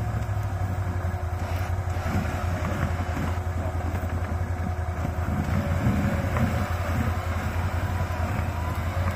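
Off-road vehicle engine running steadily at low revs, with rough, uneven mechanical noise over it.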